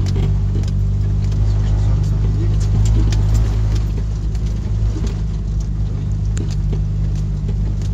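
Jeep Wrangler YJ's 2.5-litre four-cylinder engine running at a steady pitch, heard from inside the cabin while driving on a rough track. Scattered clicks and knocks of the body and fittings rattling over the bumps.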